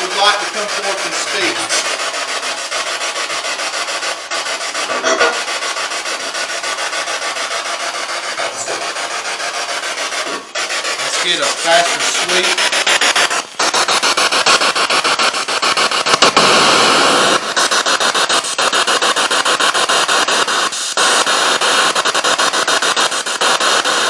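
Ghost box (spirit box) sweeping through radio stations, played through a Bluetooth speaker: continuous choppy static, chopped up many times a second, with brief snatches of broadcast voices. The sound grows louder about halfway through.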